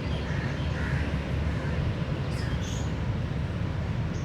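Steady low outdoor rumble, with a few faint bird chirps about two to three seconds in.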